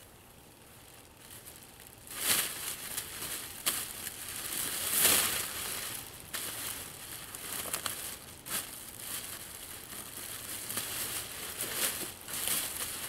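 Plastic bag crinkling and rustling as it is handled. The sound is uneven and begins about two seconds in.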